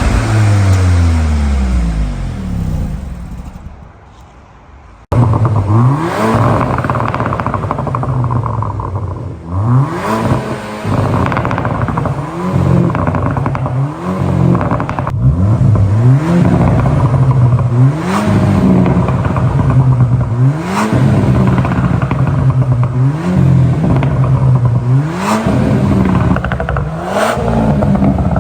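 Audi S3 8Y's turbocharged 2.0-litre four-cylinder being blipped repeatedly through an aftermarket back box with the resonator deleted. The revs rise and fall roughly every one to two seconds after a brief lull about four seconds in, with pops and crackles on the overrun from a stage 1 map set up for them, most noticeable near the end.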